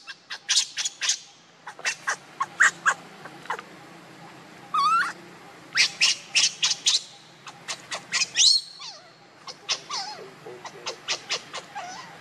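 Baby macaque crying in distress: rapid clusters of short, shrill squeals, with a longer rising squeal about five seconds in and another sharp cry a few seconds later.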